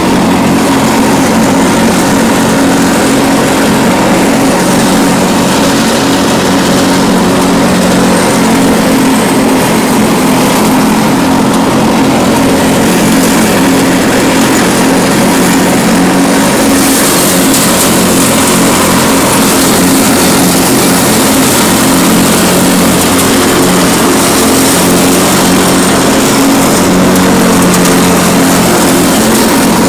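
Cub Cadet 1046 lawn tractor's engine and mower deck running steadily as it drives through dry fallen leaves, heard from the driver's seat.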